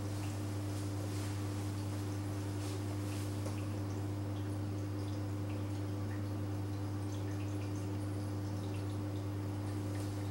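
Marine reef aquarium: a steady low hum with faint, irregular drips and trickles of water.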